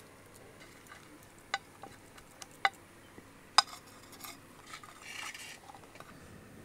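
Metal knife clicking and scraping against a plate while minced-chicken cutlets are shaped. There are a few sharp clicks, the loudest about three and a half seconds in, and a short scrape about five seconds in.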